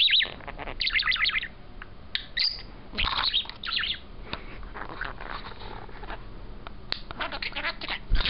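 Budgerigar chattering and warbling in quick runs of high chirps, with short pauses between runs and a quieter stretch in the middle.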